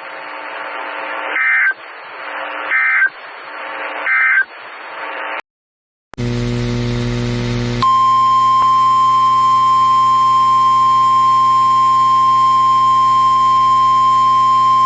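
Three short data bursts about a second and a half apart over weather-radio static, the end-of-message code of an emergency alert. After a brief cut and a short buzzy hum, a steady single-pitch alert tone near 1 kHz starts about 8 seconds in and holds: the weather radio warning alarm that opens the next alert.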